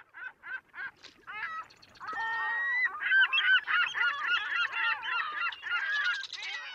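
Birds calling: a run of short, evenly repeated calls at first, then from about two seconds in many birds calling at once in an overlapping chorus.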